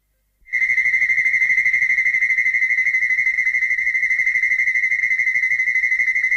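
A steady high-pitched synthesized tone that starts abruptly about half a second in and holds one pitch, with a rapid even flutter in its loudness.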